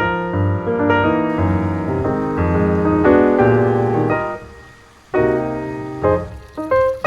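Background piano music: a melody of struck notes over a bass line, fading briefly about two-thirds of the way through before picking up again.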